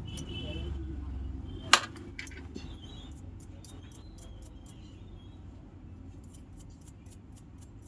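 Small repair tools handling an opened phone: one sharp loud click, then a run of light quick ticks and taps, over a low steady hum.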